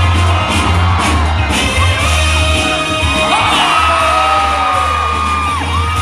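Loud breakbeat hip-hop music from the DJ with a heavy bass, with the crowd whooping and cheering over it.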